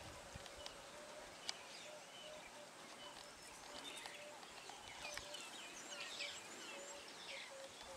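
Superb starlings calling: a scatter of short chirps and sliding whistles. Underneath runs a faint, evenly repeated low note.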